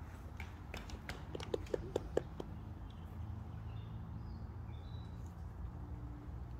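Footsteps crunching and clicking on a dirt path strewn with twigs and pine needles, a quick run of steps in the first couple of seconds. Later a few faint bird chirps.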